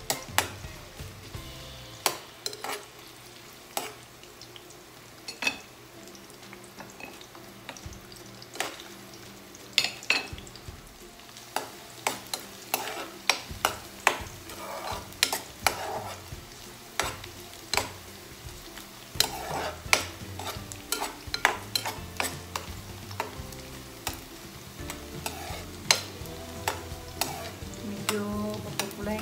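A metal spoon scraping and clinking irregularly against a stainless steel pan as chopped garlic and onion are stirred while sautéing, with a light sizzle of them frying in oil underneath.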